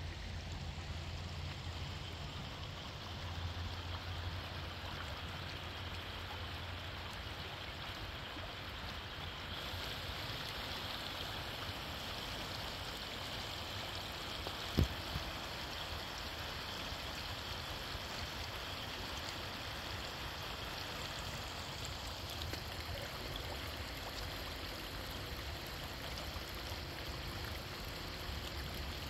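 Shallow water running over a stony bed, a steady rushing that turns brighter and fuller about a third of the way in. A single sharp knock comes about halfway through.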